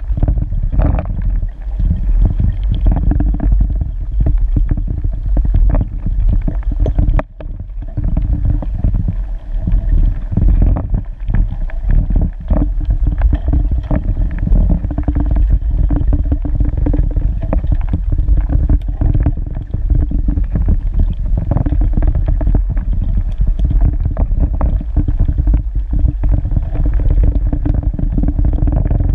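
Underwater rumble and crackle picked up by a submerged camera in a river. A steady low hum runs under it, with many short clicks and pops.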